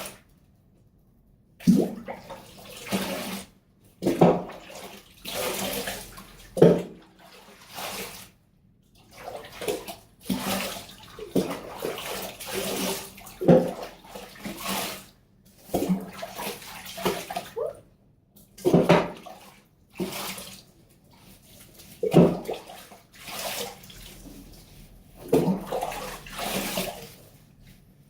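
Water poured from a cup over a dog in a bathtub, scoop after scoop: repeated splashes, each starting suddenly and lasting about a second, with short pauses in between.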